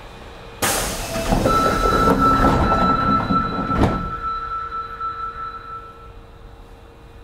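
Osaka Metro 25 series subway car's doors sliding shut: a sudden rush of noise and rattling, ending in a sharp knock as the doors close, nearly four seconds in. A steady high beep starts about a second in and runs on a couple of seconds past the closing.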